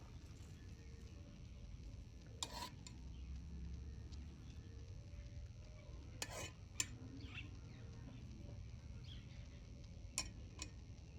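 A few sharp clinks of a metal spoon against a dish, with light stirring and scraping between them, over a low steady hum.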